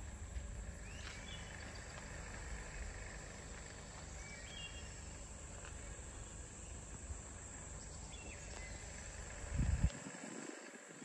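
Outdoor swamp ambience: a steady high insect drone with a few short bird chirps, over a low rumble on the microphone. A loud low bump on the microphone comes near the end.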